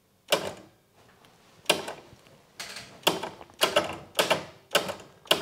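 Synchronome electromechanical bell sequencer running: its mechanism gives a run of sharp clacks, each with a short ring, settling into about two a second after the first couple.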